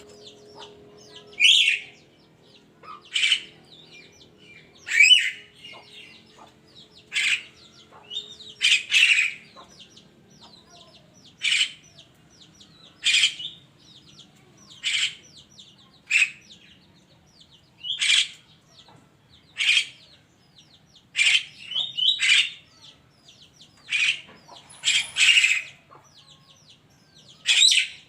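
Burung kerak, the Javan myna, calling: short harsh calls repeated about every one and a half to two seconds, several of them given in quick pairs.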